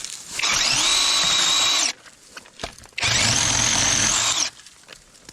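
Battery-powered chainsaw's electric motor and chain running in two bursts of about a second and a half each, each spinning up quickly to a steady high whine and then stopping.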